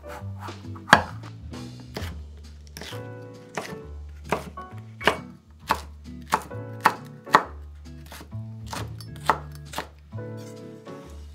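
Chef's knife slicing green peppers into thin strips on a wooden cutting board: a run of sharp, irregular knocks of the blade against the board, over light background music.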